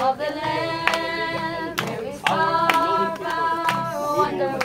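A group of people singing a gospel praise chorus together without instruments, clapping their hands on the beat roughly twice a second.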